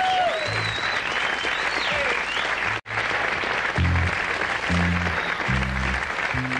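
Live concert audience applauding and cheering as the last notes of a song fade out. There is a brief dropout about three seconds in, and a few low bass notes sound in the second half.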